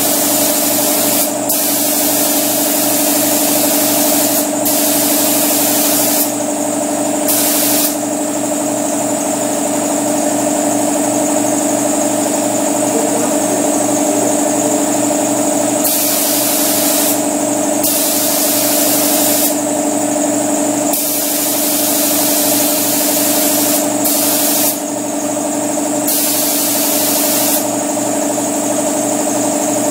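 A primer spray gun hissing in on-and-off bursts, each a few seconds long, over the steady hum of a running air compressor motor.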